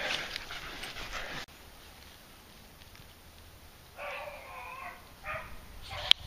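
Beagles crying out, a drawn-out wavering call about four seconds in and shorter ones after it, with a sharp click near the end.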